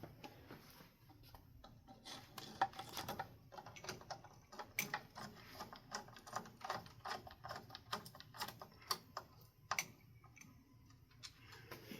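Irregular light clicks and taps of small hard parts being handled while a ceiling fan is put together, with a few sharper clicks scattered through.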